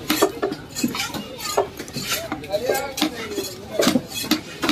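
A large knife cutting fish into pieces on a round wooden chopping block: irregular knocks and taps of the blade on the wood, with voices in the background.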